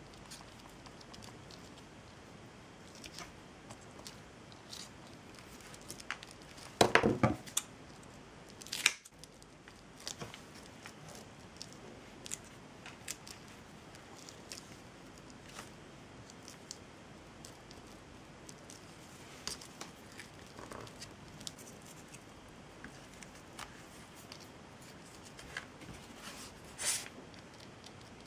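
Small handling sounds of jute twine and craft tools on a work table: scattered light clicks and taps, with a brief louder rustle about seven seconds in and a sharp click about two seconds later.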